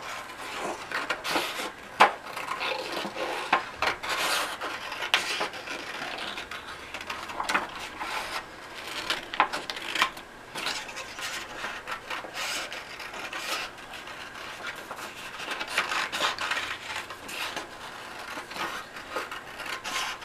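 Scissors cutting through tan construction paper in a run of irregular snips, the paper rubbing and rustling as it is turned to follow the traced outline.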